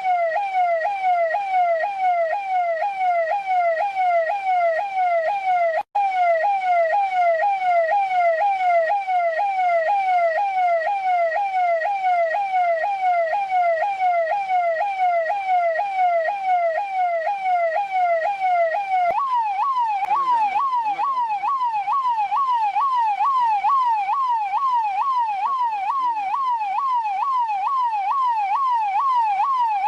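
Police siren in a fast yelp, the pitch sweeping rapidly and repeatedly, about three sweeps a second. It cuts out for an instant about six seconds in, and about two-thirds through the sweep shifts to a slightly higher pitch.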